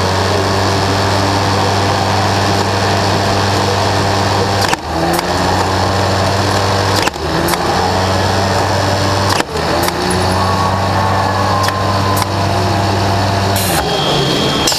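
FRC robot's electric-motor frisbee shooter wheel running with a steady hum. Its pitch briefly sags with a click three times, about 2.4 s apart, as frisbees are fired. The hum stops about a second before the end.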